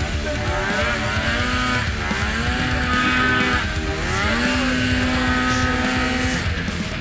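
Polaris RMK 900 snowmobile's two-stroke engine revving up and down several times under load as the sled pushes through deep powder snow.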